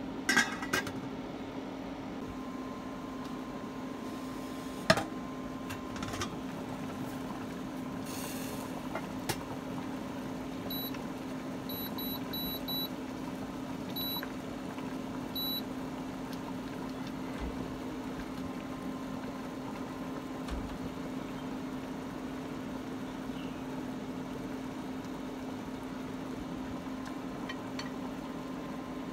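Sunhouse induction cooktop humming steadily under a steamer pot. A stainless steel lid clatters onto the pot at the start, there is a single sharp knock about five seconds in, and a run of about seven short beeps from about eleven seconds in as the cooktop's power is turned down.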